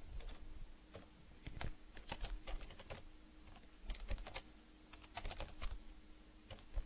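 Computer keyboard being typed on, in short irregular runs of key clicks.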